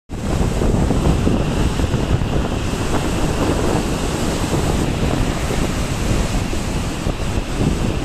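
Heavy storm surf from a cyclone swell, breaking and churning white over a rocky shore, with wind buffeting the microphone. It is a loud, steady rumble with no single crash standing out.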